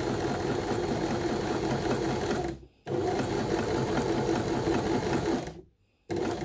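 Janome My Style 20 sewing machine running at speed, stitching the first side of a four-step buttonhole. It runs for about two and a half seconds, stops briefly, runs about as long again, then gives a short burst near the end.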